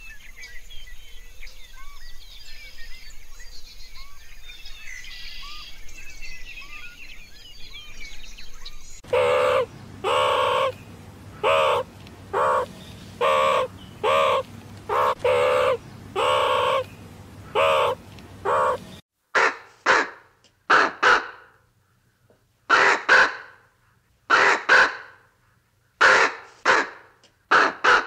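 Birds calling: faint chirping at first. About nine seconds in comes a run of about ten loud calls, roughly one a second. From about nineteen seconds there are shorter calls, mostly in pairs, each trailing off.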